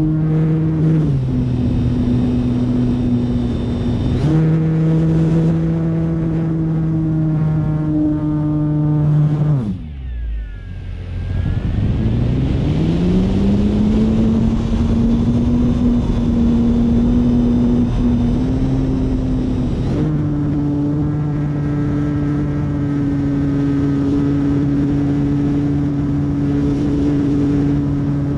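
Motor and propeller of an F3A Explorer aerobatic model airplane, heard close up from its onboard camera: a steady pitched hum with a rush of air, its note stepping up and down with throttle changes. About ten seconds in the note drops away and the sound dips, then it glides back up over the next few seconds.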